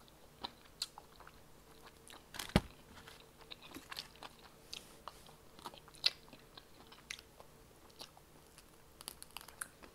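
A person eating a fried chicken wing close to the microphone: scattered short crunches and mouth clicks of biting and chewing. The sharpest crunch comes about two and a half seconds in.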